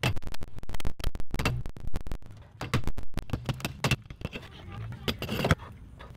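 Hammer striking a chisel to chip a loose piece out of a cracked mortar joint in a brick wall: a rapid run of sharp taps for about two seconds, then slower, scattered taps.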